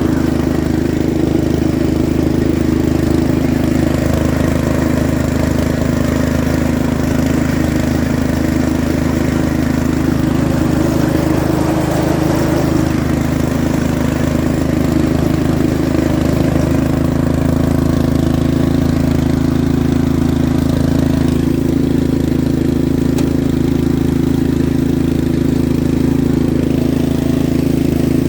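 Yard Machines MTD 13.5 hp riding lawn mower engine running steadily and loudly, its note shifting slightly about two-thirds of the way through.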